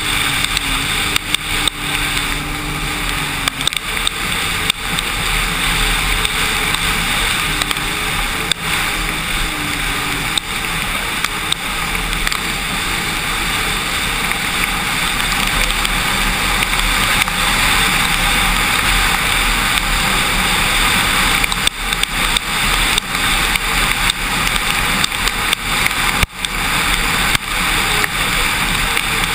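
Sea-Doo RXT-X 260 RS personal watercraft running at speed over choppy water, its engine noise mixed with a loud steady rush of wind and spray. The noise dips briefly a couple of times near the end.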